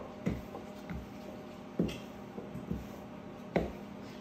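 Wooden rolling pin rolling out pie dough on a floured granite countertop, giving a string of short knocks about once a second over a steady low hum.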